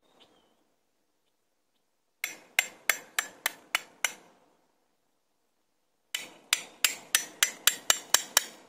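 Repeated hard blows of a hand tool, like hammering or chopping, about three to four strikes a second. One run of seven blows, a pause of about two seconds, then a run of about nine quicker blows.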